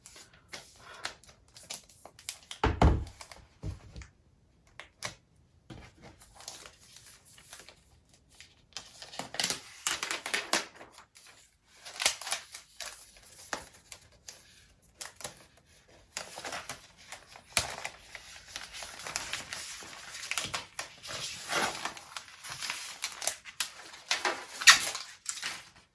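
Packaging being handled and pulled off a new MacBook Air: crinkling and tearing of wrap, with a knock about three seconds in and long spells of rustling later on.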